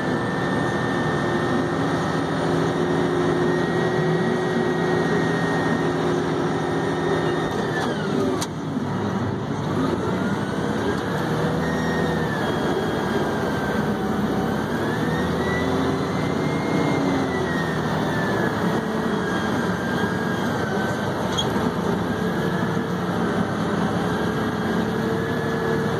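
Haul truck's diesel engine running as the truck drives, heard from inside the cab. Its pitch drops sharply about eight seconds in, climbs back, then rises and falls several times.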